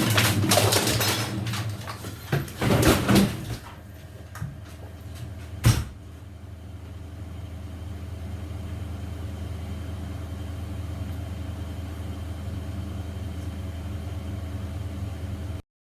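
Rustling and knocking of a bedroom door and cupboard being handled for the first few seconds, a single sharp click about six seconds in, then a steady low hum until the sound cuts off just before the end.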